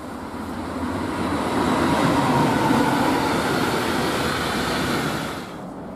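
Freight train of tank wagons, hauled by a diesel locomotive, rolling past. The rumble of the wheels grows over the first two seconds, holds, then drops away abruptly near the end.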